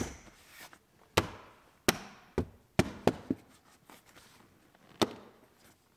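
Plastic side trim panel of a 2014 Cadillac XTS center console being smacked into place with the hand: a string of about seven sharp knocks and clicks as its retaining clips snap in.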